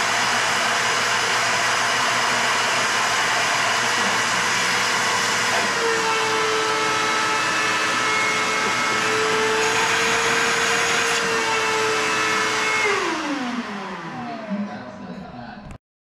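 Shop vacuum running steadily with a motor whine, used to suck engine coolant out of a snowmobile's lower cooler hose. About 13 seconds in it is switched off, and its whine falls away as the motor spins down.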